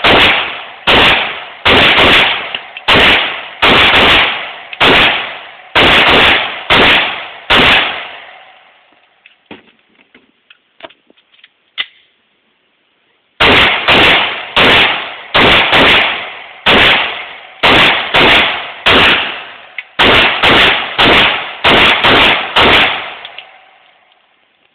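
Glock 19 9mm pistol firing two quick strings of loud shots, about one to two a second, each shot with a short ringing tail. Between the strings is a pause of about five seconds with a few faint clicks.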